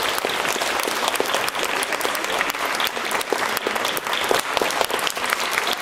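Audience applauding: many people clapping at a steady level.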